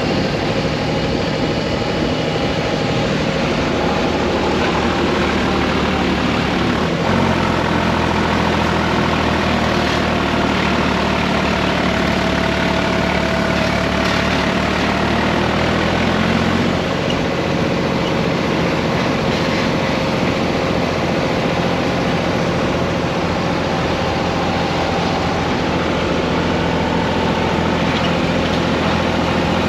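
Tractor engine running steadily as it pulls a passenger trailer along the road. Its note changes about a quarter of the way in and again a little past halfway.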